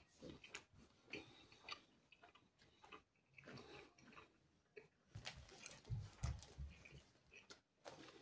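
Faint chewing and wet mouth clicks of someone eating pizza, irregular, about one to two a second. About five to seven seconds in come a few low thumps as the cardboard pizza box is handled and tipped up.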